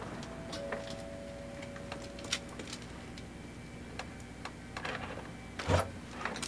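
Scattered faint ticks and clicks, then a single sharp clunk with a metallic click at a house's front door near the end.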